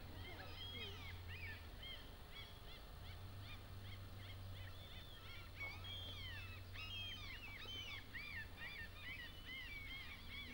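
Many birds chirping, with short, rising-and-falling calls overlapping throughout, over a steady low hum.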